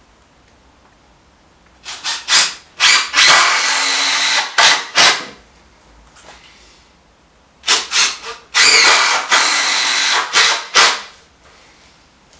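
Cordless drill driving screws into timber, twice: each time a few short spurts on the trigger, then a steady run of a couple of seconds as the screw goes home.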